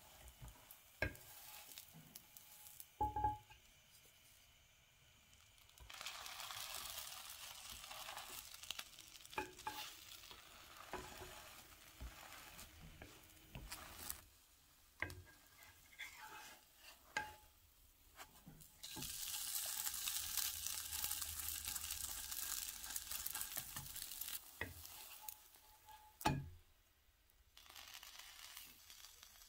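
Egg-dipped bread frying in a nonstick pan: a soft sizzle comes in two long stretches, one starting about six seconds in and one about two-thirds through, with a few short knocks and scrapes of a wooden spatula against the pan.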